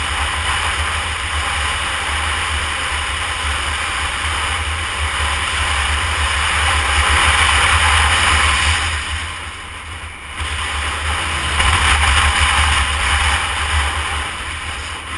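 Heavy wind noise on the microphone of a Honda CBR250R motorcycle riding at road speed. It dips briefly about two-thirds of the way through.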